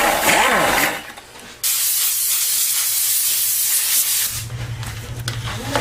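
A spray hissing steadily for nearly three seconds, starting and stopping abruptly, as a foam piece is worked on during car seat cushion repair. A wavering pitched sound fades out just before it, and a low steady hum follows it.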